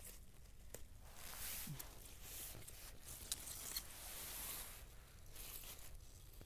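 Rustling and crackling of leafy plants and wild garlic flower stalks being handled and picked, with two sharp snaps about halfway through.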